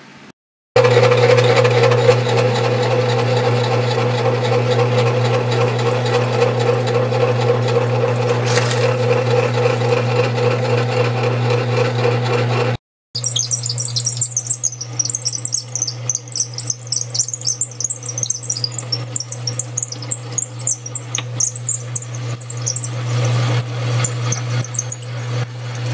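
1937 South Bend lathe running with a steady hum while a half-inch drill bit in the tailstock bores through the spinning pulley stock. After a brief cutoff about 13 s in, the drill cutting adds a dense, high-pitched squealing chatter over the hum.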